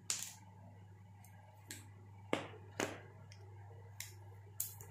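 Small sharp clicks and taps of a screwdriver against the metal parts of a DAM Quick spinning reel, about eight at irregular intervals, the loudest about two and a half and three seconds in.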